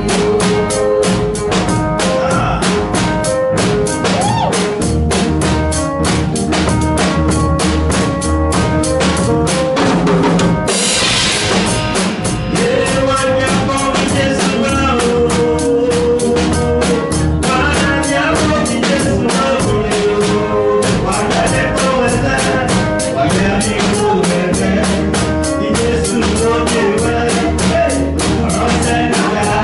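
Live church band playing an upbeat gospel groove, the drum kit driving a fast steady beat of kick, snare and rimshots over held keyboard notes, with a cymbal crash about eleven seconds in.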